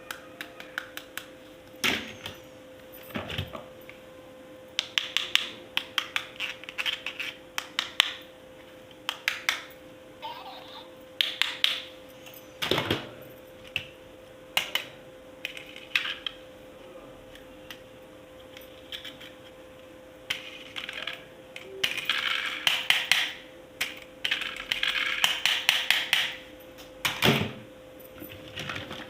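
Hard plastic toy pieces clicking and knocking as they are handled, in irregular clusters, with crackly rustling of packaging between about 21 and 26 seconds in. A faint steady hum runs underneath.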